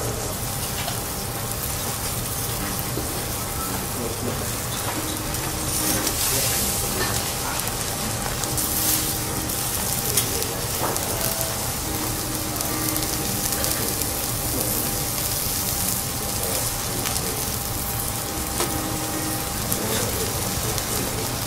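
Steady sizzling on a hot teppanyaki iron griddle, where a sealed bag of garlic in oil is heating and bubbling.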